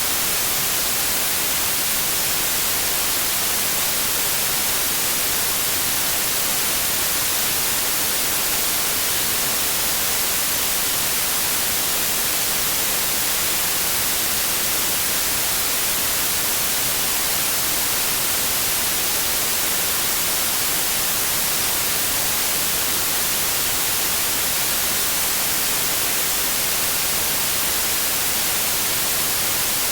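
Synthetic white noise: a steady, even hiss with a flat spectrum, sounding bright and hissy because the highs dominate, with no changes or events.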